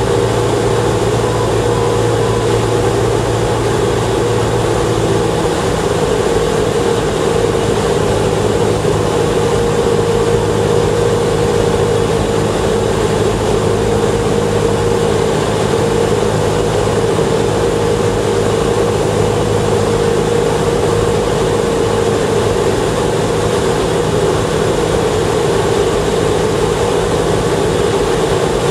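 Single-engine Cessna's piston engine and propeller droning steadily, heard from inside the cockpit during the approach to land. The low engine note changes slightly about five seconds in.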